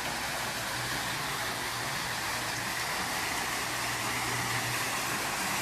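Steady rush of water falling from a pool's waterfall into the pool, an even hiss with a faint low hum under it.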